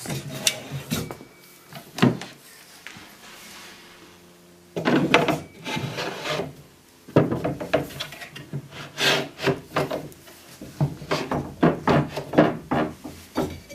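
A bamboo dresser drawer being handled on its metal slide tracks: a couple of knocks, then long runs of wooden knocking, clatter and rubbing as the drawer is worked onto the rails.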